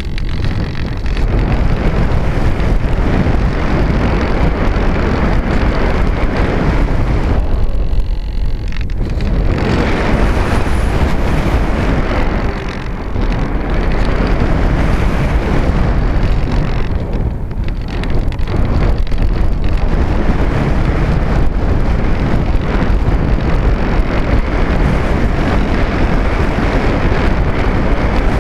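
Wind rushing over the microphone of a camera carried aboard a Diamond 1800 aircraft in flight: a loud, steady rush that eases briefly a few times as the aircraft manoeuvres.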